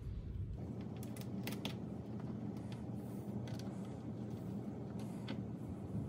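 Small metal hardware being handled and fitted by hand on a stainless steel switch plate: scattered light clicks and scrapes over a steady low hum.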